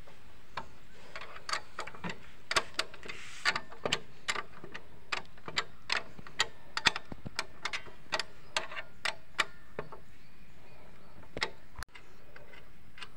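A ratchet wrench clicking in short, irregular runs of sharp metallic clicks, a few a second, as a nut on the motorcycle's rear brake stopper arm is tightened.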